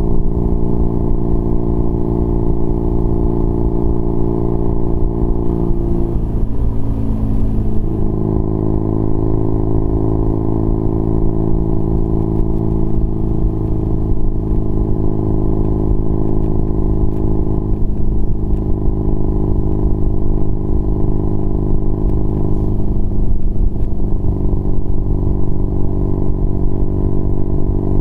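BMW R nineT Pure's 1170 cc boxer twin running at road speed through a Competition Werkes exhaust fitted with a 1.5-inch dB killer: a loud, steady, low engine note. The note breaks and shifts pitch briefly about six seconds in, and again around 18 and 23 seconds in.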